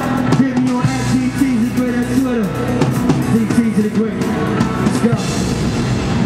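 Live hip-hop performance: a vocal line over a drum-driven beat.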